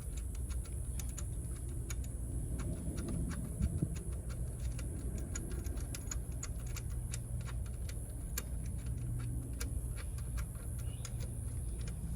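Irregular light metallic clicks and taps from a small spring and bracket being handled and fitted by hand, over a steady low hum.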